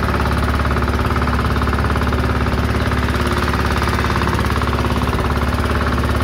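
Engine of a small wooden fishing boat running steadily under way, with a fast, even beat.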